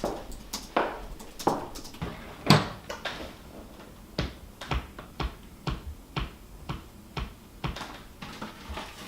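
A steady series of sharp taps or knocks, about two a second.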